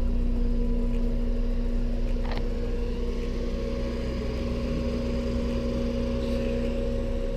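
Steady mechanical hum of a running engine or motor, a constant low drone that holds one pitch, with a single short tick about two seconds in.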